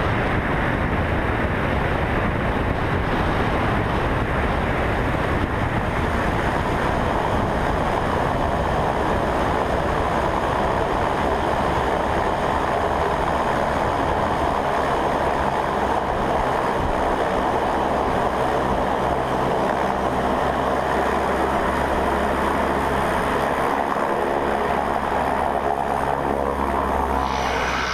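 Single-engine skydiving plane's engine and propeller running steadily as the aircraft rolls on a grass strip, heard close up from the wing with wind rushing over the microphone.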